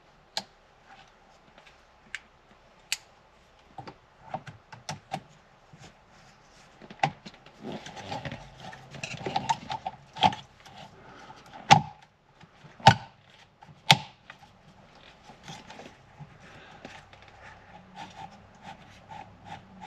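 Hands working a plastic wiring connector onto a BMW E60 M5's replacement key slot in the steering column: irregular plastic clicks, knocks and rustling, with the sharpest clicks between about seven and fourteen seconds in.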